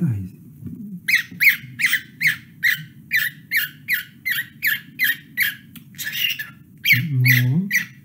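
Male cockatiel singing a rapid, evenly spaced run of short chirps, about two to three a second, starting about a second in.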